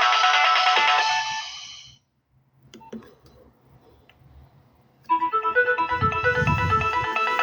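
Nokia 6030 polyphonic ringtone playing and fading out about a second in. After a near-silent gap with a few faint clicks, another ringtone melody starts abruptly, with a brief low rumble shortly after it begins.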